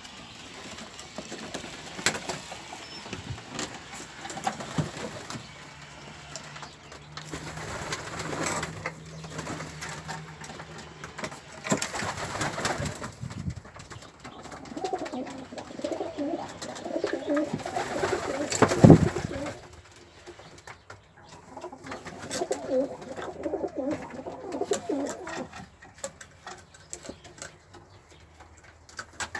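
Domestic pigeons cooing, with rippling low coos coming in stretches, mixed with scattered clicks and knocks; the loudest is a single sharp thump about two-thirds of the way through.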